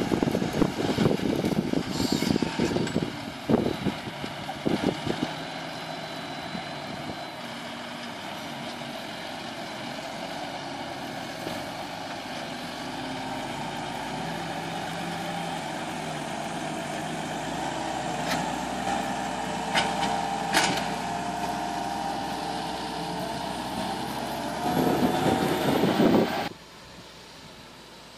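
Fendt 826 Vario tractor's engine pulling a Lemken EuroDiamant reversible plough through stubble under load, a steady drone with a rougher, louder rumble in the first few seconds. A few sharp clicks come through past the middle, the sound swells near the end, then drops suddenly to a much fainter drone.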